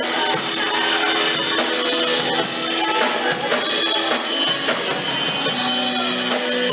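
Worship band music: held instrumental notes over a drum kit keeping a steady beat, in an instrumental passage without singing.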